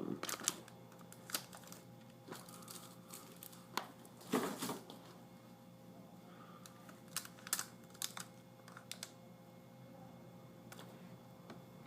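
Scattered plastic clicks and taps from a Toshiba L655 laptop's screen parts being handled and worked loose by hand. There is a louder, longer scrape about four seconds in, and a run of quick clicks later on.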